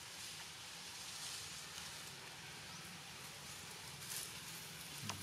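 Faint, steady outdoor background hiss with no distinct event.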